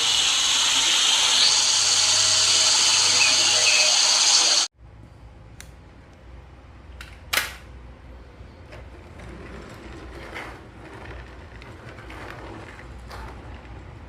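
Small electric motor of a battery-powered toy whirring loudly and steadily, then cutting off suddenly about five seconds in. Quieter handling sounds and a sharp click follow.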